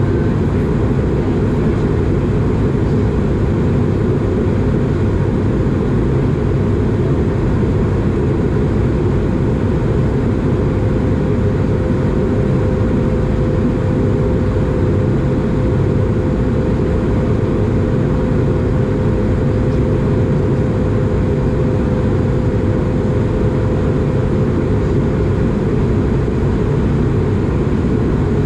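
Steady cabin roar of an Airbus A220 in flight, heard inside the cabin over the wing: airflow and its Pratt & Whitney PW1500G geared turbofan engines, with a thin steady tone in the noise that fades out near the end.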